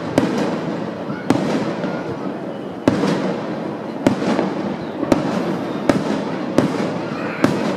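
Aerial firework shells bursting during a finale barrage: about eight sharp booms at uneven intervals of roughly a second, with continuous noise between them.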